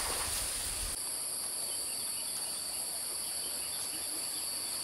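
Steady chorus of insects: several high, continuous tones held together without a break. A low rumble drops away about a second in.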